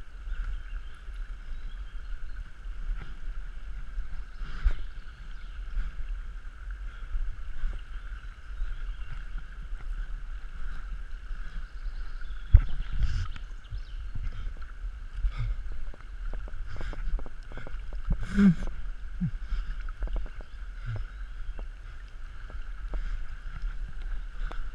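River water gurgling and lapping around a camera carried along by the current, over a steady low rumble, with scattered knocks and splashes. The sharpest knocks come about twelve and a half and eighteen seconds in.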